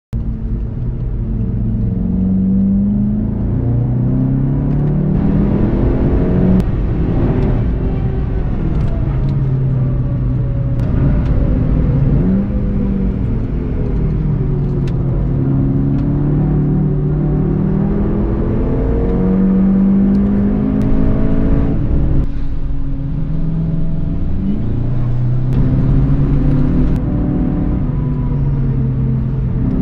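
Golf GTI TCR's turbocharged 2.0-litre four-cylinder engine under hard driving, heard from inside the cabin: its pitch keeps climbing and falling with the throttle, with several abrupt drops and jumps along the way.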